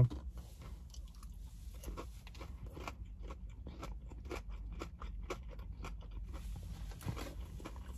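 A person chewing a mouthful of breaded fried chicken finger close to the microphone: irregular crunching with many small crisp clicks.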